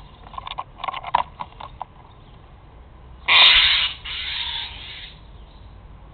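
Light clicks and scratches at the nest-box entrance, then about three seconds in a loud harsh bird screech lasting under a second, followed by a quieter harsh call for about another second.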